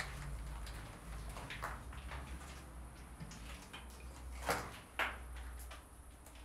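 Irregular scuffs, scrapes and knocks of footsteps and movement on a debris-strewn floor, over a low handling rumble from the handheld camera, with two sharper knocks about four and a half and five seconds in.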